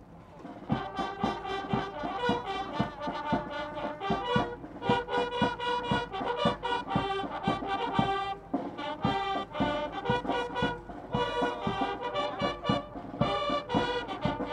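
A squad of Japan Ground Self-Defense Force signal bugles playing a drill piece in unison, over the steady beat of a bass drum. The bugles come in just under a second in, with short breaks between phrases.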